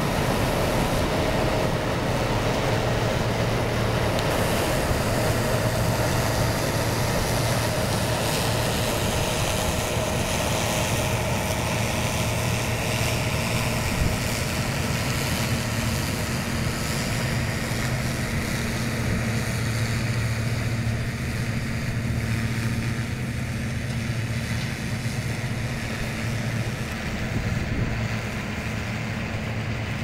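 A tractor pulling a John Deere 7721 pull-type combine through wheat: a steady engine drone mixed with the combine's threshing machinery running under load. It gets slightly quieter over the second half.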